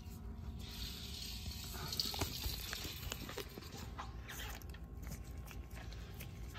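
Faint crinkling and rustling of crumpled aluminium foil, loudest in the first two or three seconds, with a few light clicks after.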